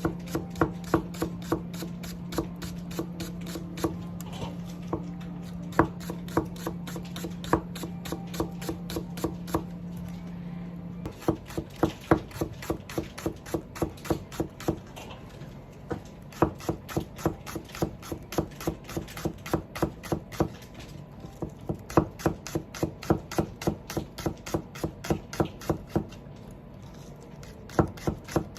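Kitchen knife slicing Japanese green onion (negi) on a cutting board, a quick even run of strokes at about three to four a second. A steady low hum underneath stops about eleven seconds in.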